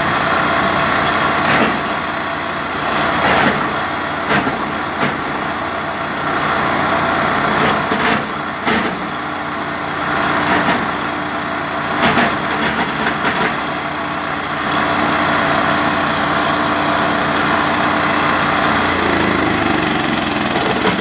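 Maracó 15 hp gasoline wood chipper engine running steadily at speed, with occasional sharp clacks. Near the end its pitch falls as the engine slows down.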